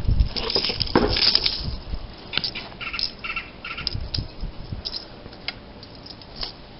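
Scattered light clicks and rattles from a cloth bandolier of .308 cartridges being handled, busier in the first second or so and then sparser, with a few short squeaks about three seconds in.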